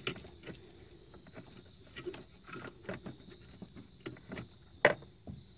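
Faint scattered clicks and rustles of hands handling a plastic fuse block, connectors and wiring, with one sharper click near the end.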